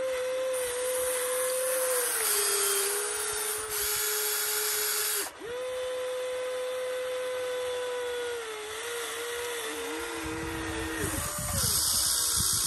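A Huina RC excavator's small electric motors and gearboxes whine steadily as the boom, arm and turntable move. The pitch steps down and then cuts out briefly about five seconds in before starting again. Near the end the pitch shifts up and down and a rougher low grinding joins as the bucket digs into the sand.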